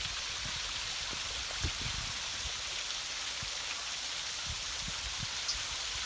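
Steady hiss of rushing creek water, with a few soft low thumps.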